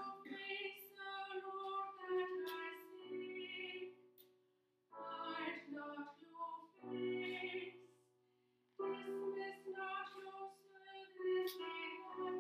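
A woman cantor singing the responsorial psalm at Mass, in three phrases with short pauses about four and eight seconds in, over steady held chords from an accompanying instrument.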